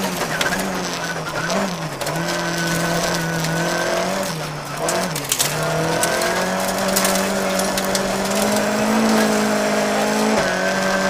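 Volvo 940 rally car's engine running hard on a gravel stage, heard from inside the cabin. The note dips briefly a few times in the first five seconds as the driver lifts and shifts down, then holds steady at high revs. Gravel and stones crack against the underside throughout.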